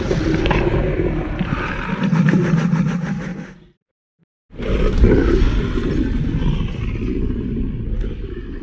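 Sub-adult Indominus rex creature sound effect: two long, rough roaring growls separated by a gap of under a second of silence, the second fading out near the end.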